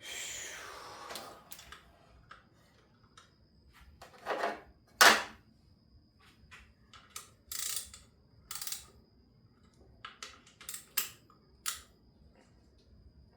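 Hand tools clicking and clanking on metal in an engine bay while an AC compressor is being unbolted: a falling rasp in the first second, then scattered sharp knocks, the loudest about five seconds in, and a run of lighter clicks near the end.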